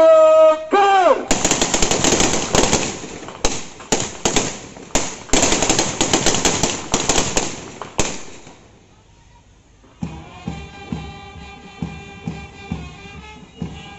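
A long shouted word of command, then a feu de joie: ceremonial rifles fired in a rapid, uneven ripple of cracks for about seven seconds. About two seconds after the last shot a brass band starts playing a section of the national anthem.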